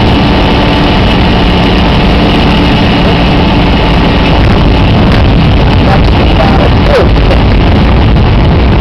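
Cockpit noise of a Mooney M20C in flight: its four-cylinder Lycoming engine and propeller running with a loud, steady drone over airflow noise. The engine's humming tones fade about four seconds in while the broad noise carries on.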